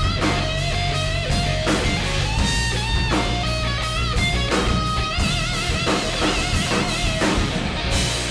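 Live rock band playing an instrumental passage: electric guitar lead with bending, wavering notes over a steady drum beat and bass.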